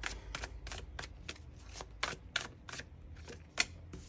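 Tarot cards being shuffled and handled: a run of quick, irregular papery clicks and snaps, about four or five a second.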